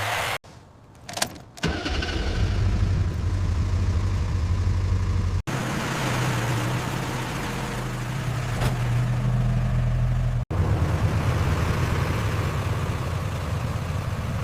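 A 1990s American sedan's engine starting after a brief quiet spell with a click or two, then running steadily with a low hum. The sound breaks off abruptly twice, about five and ten seconds in, and resumes running each time.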